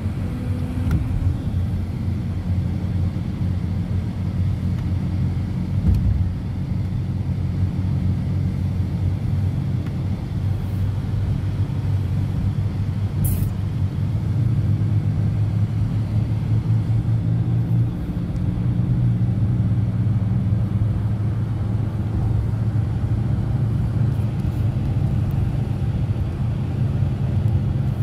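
A BMW driving along the road, heard from inside the cabin: a steady low rumble of engine and road noise, with a hum that changes pitch a few times. There is a brief click about thirteen seconds in.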